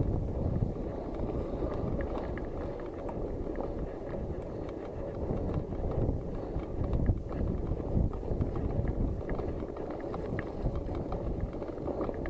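Mountain bike ridden fast along a muddy dirt track: wind buffeting the microphone and a steady rumble of tyres on wet dirt, with frequent small rattles and knocks as the bike goes over bumps.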